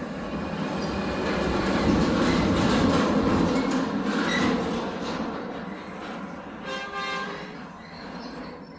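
A passing vehicle's noise swells to a peak and then fades away, with a short horn toot about seven seconds in.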